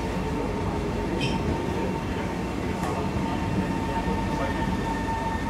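Interior of a Kawasaki-CRRC Sifang C151B metro train standing at a platform with its doors open: a steady hum of the idling train's on-board equipment with a constant high tone through it. A couple of faint clicks sound near the middle.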